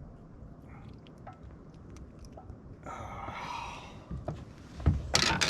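Handling noises as a small bluegill is landed in a boat: scattered small clicks, a rustling scrape about three seconds in, then a few loud thumps near the end, over a low steady rumble.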